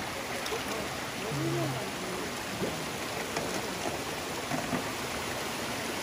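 Shallow mountain stream running steadily over stones.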